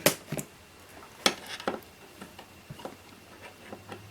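Scattered metal clicks and knocks as the metal-cased electronics modules of a drone autopilot unit are handled and worked apart on a bench, with a sharp knock at the start and another about a second in.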